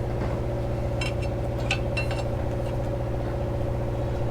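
An engine idling with a steady low hum. A few light metallic clinks come between one and two seconds in.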